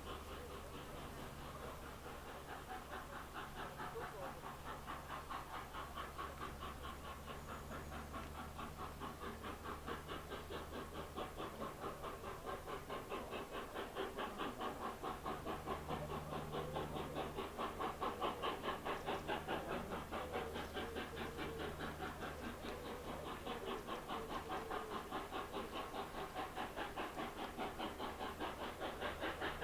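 Locomotive-hauled train working along the line: a steady low engine hum under a fast rhythmic pulsing, growing gradually louder as it approaches.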